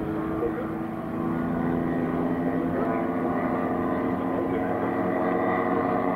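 Engines of radio-controlled scale models of a Heinkel He 111 bomber and two Ju 87 Stuka dive bombers flying overhead in formation: a steady drone of several engine notes overlapping, growing a little louder after about a second.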